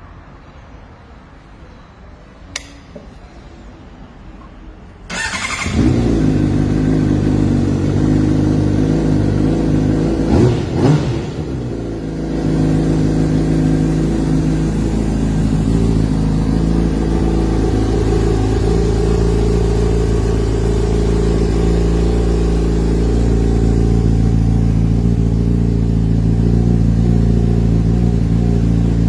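Honda CBR600RR inline-four engine starting about five seconds in through an aftermarket performance exhaust, after a single click. It gives one short rev around ten seconds in, then settles into a steady idle.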